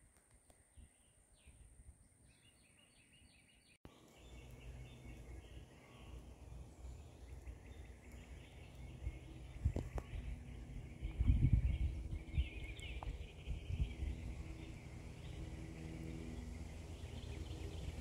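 Birds chirping and calling: a few sparse chirps over a steady high tone, then, after an abrupt cut about four seconds in, a dense chorus of chirps over low rumbling noise that swells around the middle.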